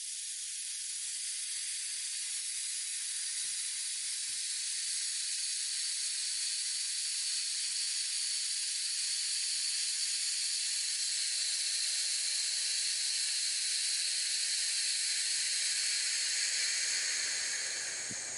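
Compressed air hissing steadily out of air-suspension bags as they are dumped through the valve, letting the truck settle. The hiss tails off near the end as the bags empty.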